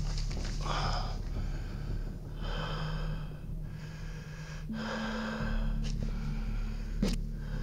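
A person breathing heavily close to the microphone, a breath roughly every two seconds, over a steady low hum, with one sharp click near the end.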